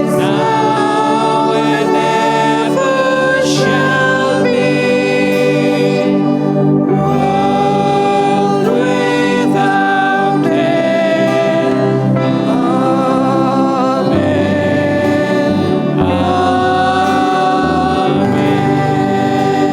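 Recorded Christian choral music: a choir singing held notes over an instrumental accompaniment with a steady bass line.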